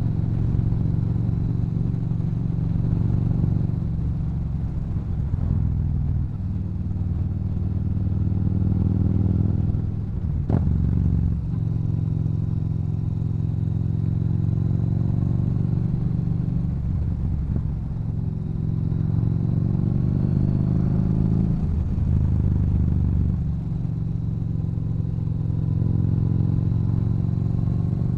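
Yamaha Bolt's air-cooled V-twin running through a Cobra aftermarket exhaust while riding. It rises in pitch under throttle and drops back at several gear changes, with one sharp click about ten seconds in.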